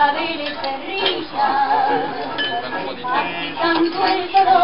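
Recorded tango music with a singer's voice, the sung line wavering with vibrato over sustained instrumental notes.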